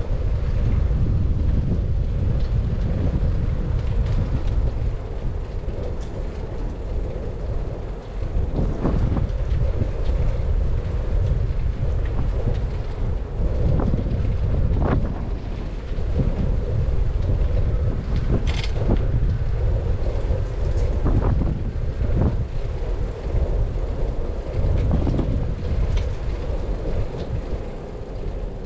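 Bicycle ridden steadily, with wind buffeting the handlebar-mounted microphone and tyre rumble, and a few short knocks and rattles along the way.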